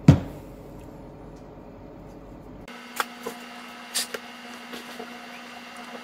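A sharp knock as a smartphone is set down on a desk, then a few faint clicks about three and four seconds in. A steady low hum comes in about two and a half seconds in.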